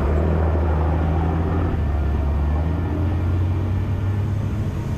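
Seine skiff's engine running steadily under load with a low drone, mixed with the rush of water and wind.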